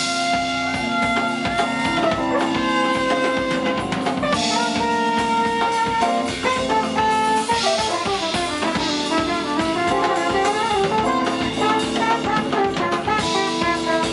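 Live traditional New Orleans jazz band playing an instrumental passage: trumpet lines of held notes and quicker runs over a steady drum kit beat and electric bass.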